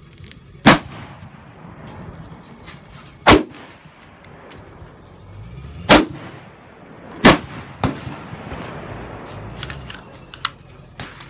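AR-15-style rifle firing four loud shots, a few seconds apart, each with a short echo. A few fainter sharp cracks follow near the end.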